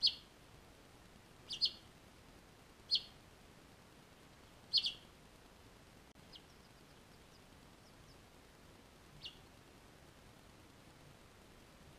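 Finches chirping: four short, sharp chirps in the first five seconds, two of them doubled, then a few fainter ones later.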